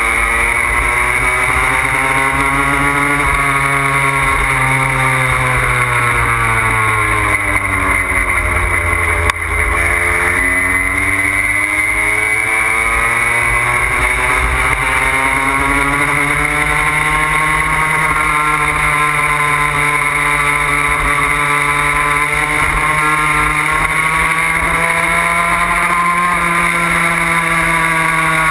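Puch Maxi moped's small single-cylinder two-stroke engine running under way: its pitch sinks to a low point about nine seconds in, climbs back over the next several seconds and then holds fairly steady. Wind rushes over the microphone throughout.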